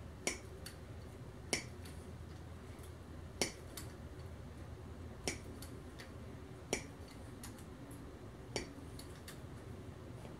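Hand-pumped Temco hydraulic crimping tool working, a sharp click with each pump stroke, about six clicks at an uneven pace of one every second and a half or so, as the number 50 die bites down on a battery cable lug.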